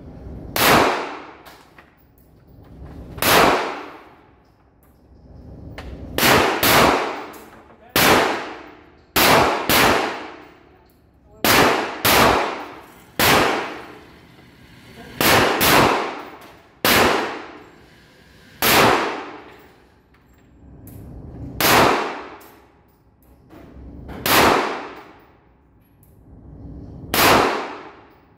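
Gunshots fired one at a time, about seventeen at uneven intervals of one to three seconds, some in quick pairs.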